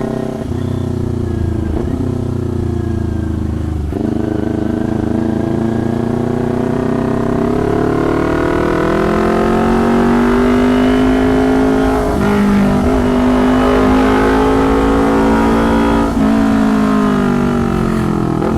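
Kawasaki Ninja 250's parallel-twin engine through a loud aftermarket can exhaust, pulling under throttle: the pitch climbs over several seconds and drops back briefly a few times. Very noisy.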